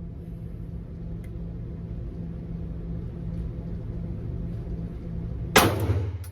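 A single 9mm pistol shot from a Glock 45, a sharp crack near the end with a short ringing tail, over a steady low hum.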